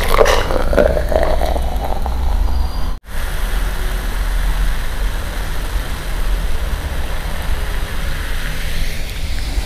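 Coca-Cola poured from a plastic bottle into a glass, fizzing, with a rising tone as the glass fills near the end. A steady low hum runs underneath.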